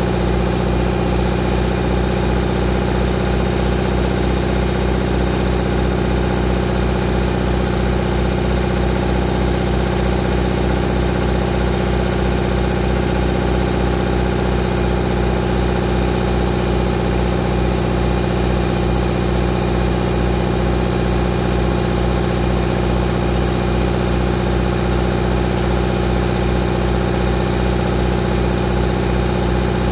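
A 1965 Owens generator's engine running steadily on compressed hydrogen and oxyhydrogen gas, at an even speed throughout.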